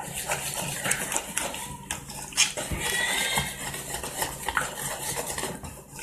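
Wire whisk beating eggs into sweet potato pie filling, clinking against the mixing bowl in a repeated rhythm.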